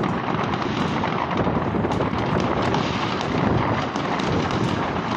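Many fireworks going off at once, their bangs and crackles overlapping into one continuous noise without a break.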